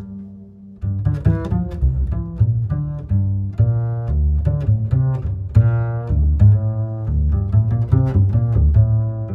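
Background music: a run of short, pitched low notes with sharp starts, dipping briefly and picking up again about a second in.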